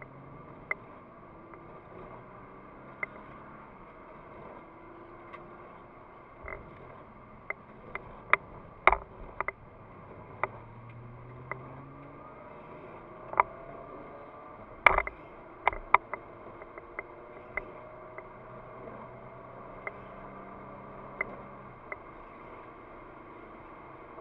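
Nissan GT-R's twin-turbo V6 heard from inside the cabin while driving, its pitch rising and falling as the car accelerates and eases off. Sharp clicks and knocks come throughout, the loudest near the middle.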